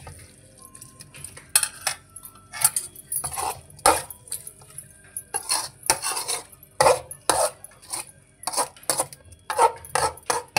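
A steel ladle scraping and knocking against a steel wok while stirring a thick beetroot stir-fry, in repeated irregular strokes about one or two a second.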